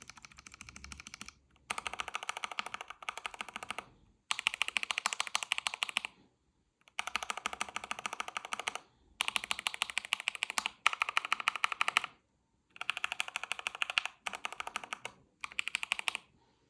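Keystrokes on a mechanical keyboard fitted with yellow linear switches, hammered rapidly in short bursts of one to two seconds with brief pauses between them, about eight bursts in all.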